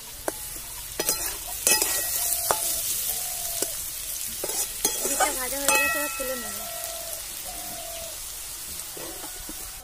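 Beetroot strips and green chillies sizzling in hot oil in an aluminium karahi while a flat metal spatula stirs them, scraping and clinking against the pan several times. The sizzle dies down toward the end.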